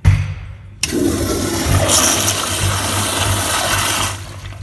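A low thump, then an American Standard flushometer flushes an American Standard Afwall toilet: a loud rush of water for about three seconds that drops off near the end.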